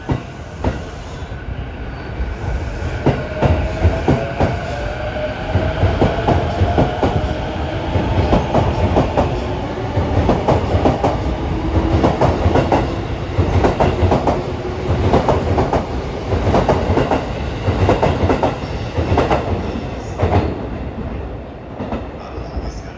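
Electric train running through the station, its wheels clacking repeatedly over rail joints and points. A motor whine rises slowly in pitch as it picks up speed.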